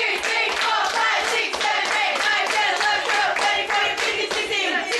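A small group clapping in a steady rhythm, about three to four claps a second, with several voices going on over the claps.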